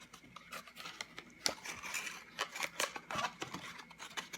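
A yo-yo being handled, with irregular light clicks and rubbing as it is turned over in the hands.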